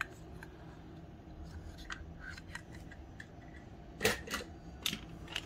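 Light clicks and taps of small die-cast toy vehicles being handled, with a short cluster of sharper clicks about four seconds in.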